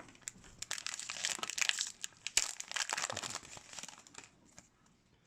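A 2019-20 Upper Deck MVP hockey card pack wrapper being torn open and crinkled, a dense crackling with many small clicks that dies away after about four seconds.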